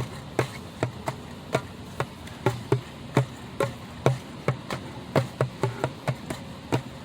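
A drum played by hand in an uneven, amateur rhythm, about two to three strikes a second, with deep thuds and some ringing strokes.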